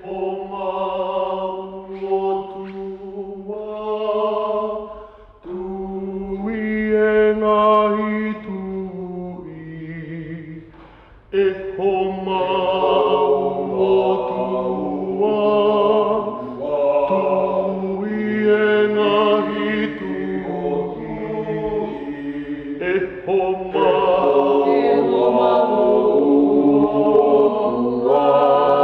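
A Fijian vocal group chanting a hymn a cappella in harmony, in sustained phrases with short breaks about five and eleven seconds in, fuller and louder after the second break.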